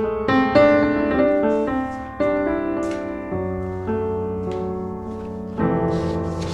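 Background piano music: notes struck one after another, each fading, with chords shifting every second or so.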